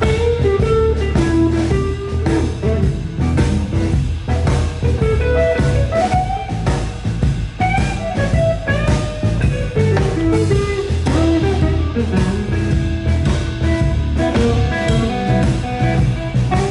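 Live blues band playing: a guitar lead over bass and drum kit with a steady beat.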